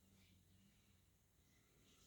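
Near silence: room tone with a faint steady low hum and a couple of very faint, brief soft rustles.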